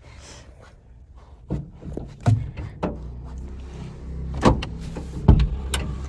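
Car door opening and a person getting into the passenger seat: a run of knocks and thuds over a low rumble that grows louder about a second and a half in.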